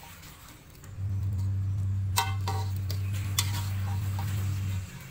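Metal spatula stirring a fish-and-potato sambal in a wok, clinking against the pan twice with a short metallic ring, about two and three and a half seconds in. A steady low hum runs beneath, dropping out in the first second and again near the end.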